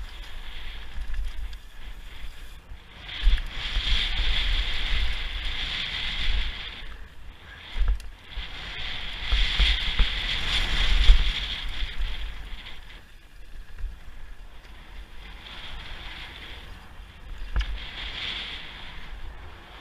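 Wind rushing over the mountain-bike camera's microphone at speed, with tyres rumbling over loose gravel and dirt. It swells and eases in several long waves, with a few sharp knocks from bumps.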